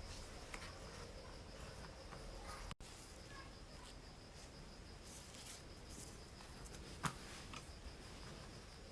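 Faint, quiet room with a steady thin high-pitched whine and a few light clicks and taps, the sharpest about seven seconds in; the sound cuts out for an instant near three seconds.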